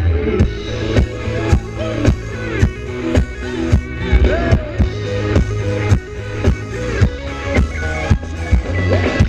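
Thai ram wong dance music from a live band: a steady beat of about two drum hits a second under a pitched melody.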